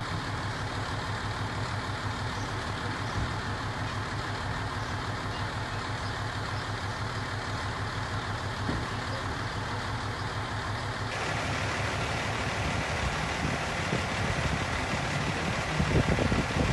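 A vehicle engine idling steadily, with a fine even pulsing in its low hum. Louder irregular low rumbles come in near the end.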